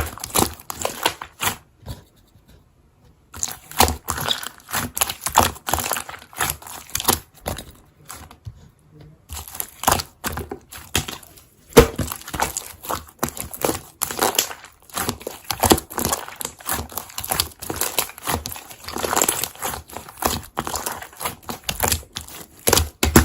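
Slime being squeezed, poked and stretched by hand, giving irregular crackling, clicking and popping, with two short pauses.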